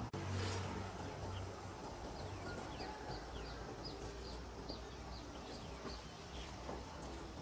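A small bird calling in a rapid series of short, high chirps, about three a second, some falling slightly in pitch, over a faint low rural background.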